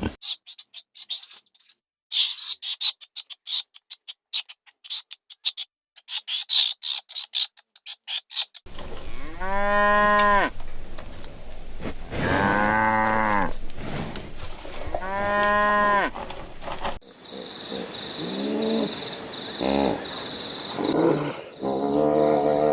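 Rapid crackling clicks for the first eight seconds or so, then cattle mooing: three long moos a few seconds apart, followed by shorter, softer calls over a steady high hiss.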